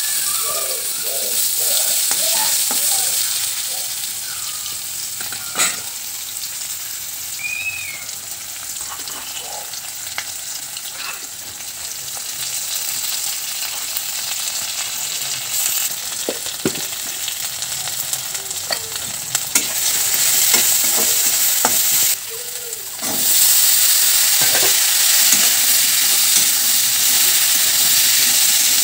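Sliced onions and spices sizzling in hot mustard oil in an iron kadai, stirred with a metal spatula that clinks and scrapes against the pan now and then. After a brief dip about 22 seconds in, the sizzling comes back louder for the last several seconds with potato cubes in the pan.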